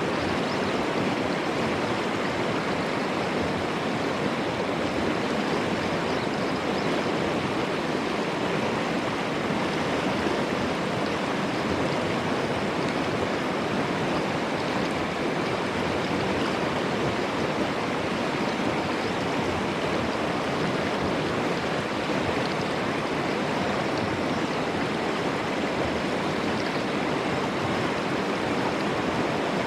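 Swollen mountain river rushing steadily over rocks, running high after heavy rain.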